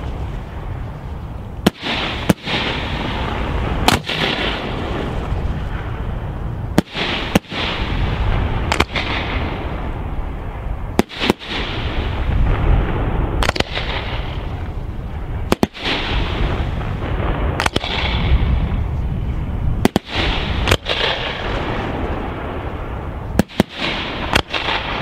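Fireworks display: aerial shells bursting with sharp bangs every second or two, several in quick pairs, over a continuous rolling rumble of echoes and crackle between the bursts.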